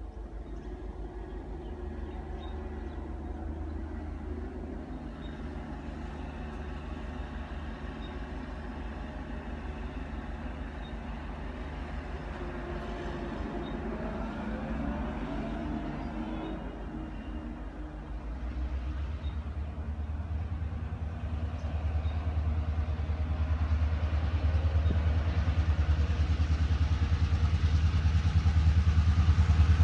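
Approaching train locomotive, its deep engine drone growing steadily louder, loudest near the end.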